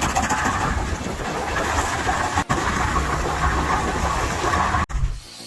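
Engine-driven machinery running steadily with a dense, rattling mechanical noise, broken by two brief drops and falling away near the end.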